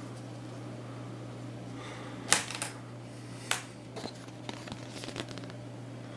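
Clear plastic wrapping rustling and crinkling and a cardboard insert being handled, in a few short bursts, the loudest about two seconds in, over a steady low hum.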